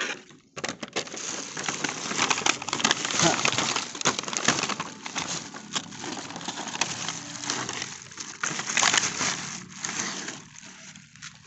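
Thin plastic carrier bag rustling and crinkling continuously as packaged plastic toys are pushed into it and the bag is handled.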